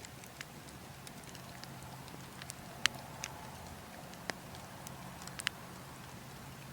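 Burning logs crackling, with sharp pops scattered irregularly (the loudest about three seconds in), over a steady low rush of wind.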